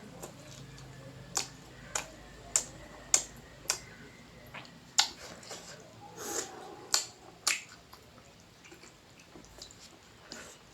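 Close-miked chewing of rice: a run of sharp, wet mouth clicks and lip smacks, roughly one every half second, easing off in the last few seconds.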